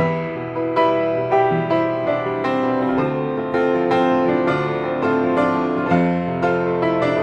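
Background piano music, a gentle melody of struck notes over sustained chords.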